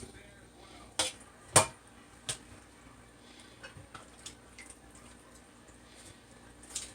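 Raw chicken pieces being washed by hand in water: drips and small splashes, with a few sharp knocks against the bowl or sink in the first couple of seconds, the loudest about a second and a half in.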